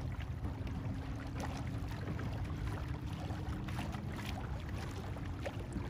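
Small waves lapping at a kayak, with light wind on the microphone and a faint steady hum underneath.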